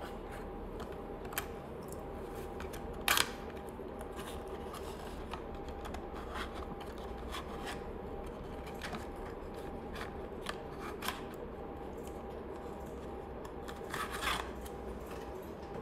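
Cardboard box being handled and opened: scattered rubs, scrapes and clicks as the end flap is lifted and the metal watch-strap pliers slide out, loudest about three seconds in and again near the end. A steady low hum runs underneath.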